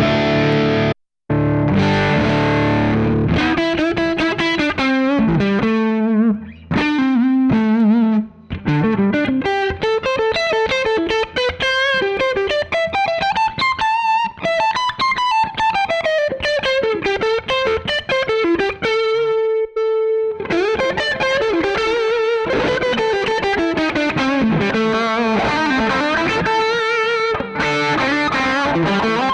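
Electric guitar played through a Fractal Audio FM9 amp-modeller preset with a distorted tone. A chord breaks off briefly about a second in, then fast single-note lead runs climb and fall in pitch, with one note held for about a second near the end.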